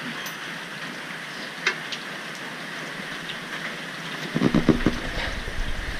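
Steady hiss of heavy rain falling, with a few light clicks and, about four and a half seconds in, a run of low knocks and rumbling from hands working the rigid strut onto the motorcycle's rear mount.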